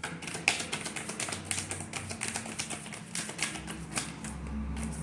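A deck of tarot cards being shuffled by hand: a rapid, uneven run of light card clicks and slaps as the cards are slid from one hand into the other.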